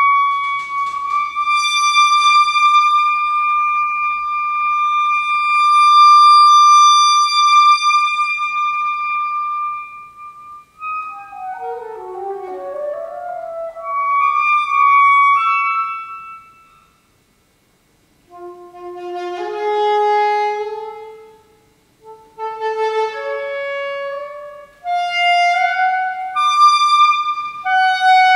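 Solo saxophone playing a contemporary concert piece: one long high held note for about ten seconds, then quick, wide-ranging melodic figures broken by a short pause about two-thirds of the way through.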